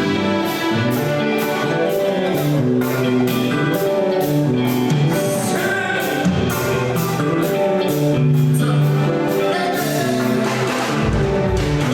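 Live band music with a steady beat, guitar and other instruments, and singing voices over it.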